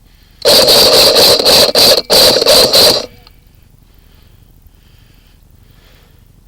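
Airsoft gun firing two close, loud full-auto bursts: a fast rattling train of shots with a brief break about two seconds in.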